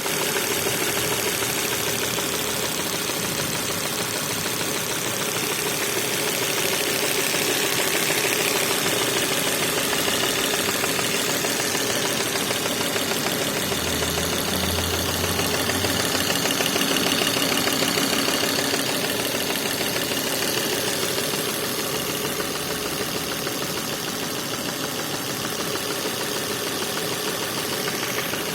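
Volvo S60 2.4 five-cylinder engine idling steadily with a knocking sound.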